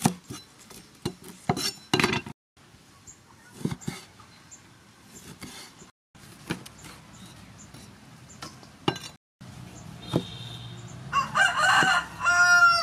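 Steel cleaver chopping lemongrass and a lime on a wooden chopping block: a series of sharp knocks. Near the end a rooster crows once, as loud as the loudest chops.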